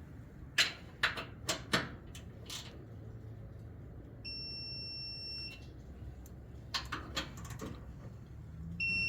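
Several sharp clicks in two quick groups, and twice a steady high beep of about a second from a digital torque adapter, the second one louder and starting near the end. The beep is the adapter's signal that the bolt has reached its set torque of about 100 inch-pounds.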